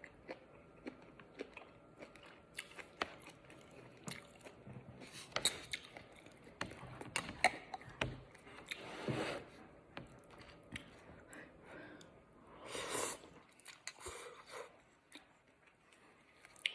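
Someone eating: chewing food, with scattered sharp clicks of a utensil against the dish and two longer, louder stretches about nine and thirteen seconds in.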